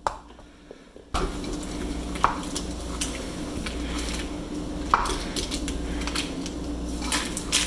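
Shredded mozzarella pattering from a plastic measuring cup onto biscuit pieces in a crockpot, starting about a second in, with a couple of sharp clicks of the cup over a steady low hum.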